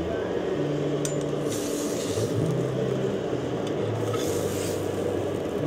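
Knife blade scraping grilled chicken wings off a metal rodizio skewer, with two short rasps, one about a second and a half in and one near the end. Background music with held bass notes plays underneath.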